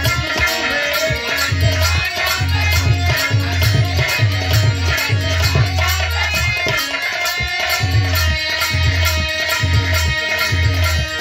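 Biraha folk music with a steady drum beat and melodic instruments, with little or no singing.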